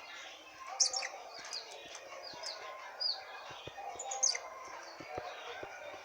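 Blue-crowned hanging parrot (serindit) giving short, high-pitched chirps and squeaks in irregular bursts, loudest about a second in and again around four seconds.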